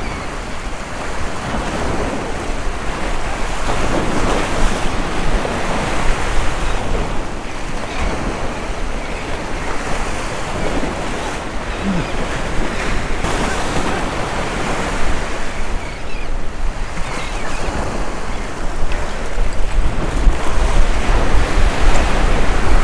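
Waves breaking and washing over jetty rocks, a steady rushing surf, with wind buffeting the microphone; the surf grows louder near the end.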